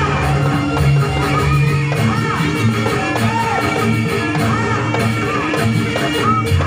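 Loud music: a melody that bends up and down in short arcs over sustained low notes.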